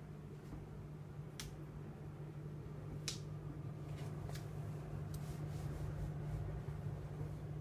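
Refrigerator-freezer running with a steady low hum, with a few light clicks scattered through.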